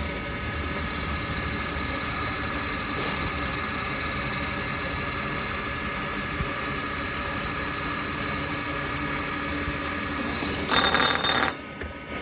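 Metal-cutting machine tool running a cut, with a steady high-pitched squeal made of several held tones. A louder, harsh grinding burst comes near the end.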